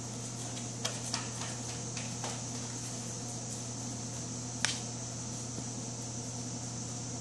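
Steady low hum and hiss of room tone, with a few faint clicks in the first couple of seconds and one sharper tick about four and a half seconds in.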